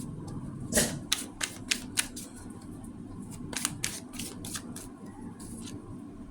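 Tarot cards being handled: a run of irregular light clicks and taps for several seconds.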